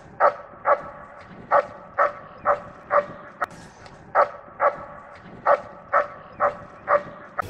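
A dog barking repeatedly: about thirteen short, sharp barks, roughly two a second, with a couple of brief pauses.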